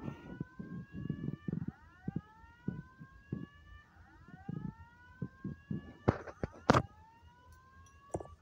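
Fire alarm voice-evacuation speaker sounding a slow whoop, a rising sweep tone repeating every couple of seconds, the alert tone of a Simplex evacuation message. Irregular low knocks run under it, and two sharp clicks about six seconds in are the loudest sounds.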